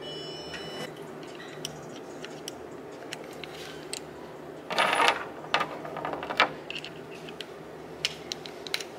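Small metallic clinks and clicks, with a brief louder rattle about five seconds in and a few sharp ticks after it, over a steady low hum.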